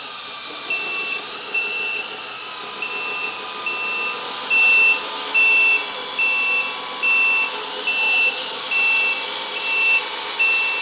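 RC mine dump truck's sound module playing a reversing alarm as the truck backs up: a steady run of short, high beeps, about one and a half a second, over the module's steady simulated engine sound.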